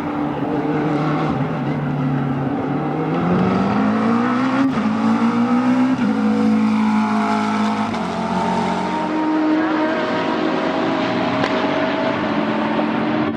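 McLaren 650S GT3's twin-turbo V8 race engine accelerating hard, its pitch climbing and breaking at quick upshifts about five and six seconds in, with the engines of other GT race cars running alongside.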